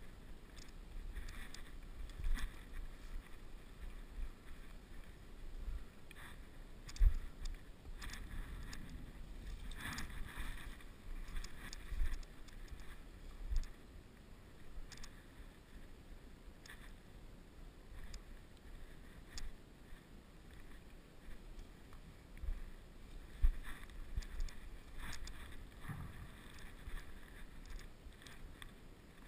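Rumbling movement and wind noise on a helmet camera's microphone, with irregular low thumps and scattered sharp clicks; the loudest thump comes about seven seconds in.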